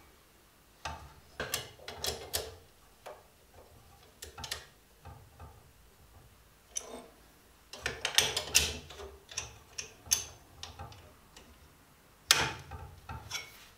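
Metal clicks and clinks of a Stanley No. 113 compass plane being put back together by hand, as the steel blade and chipbreaker are set into the plane body. Small knocks come in several short clusters with quiet gaps between them.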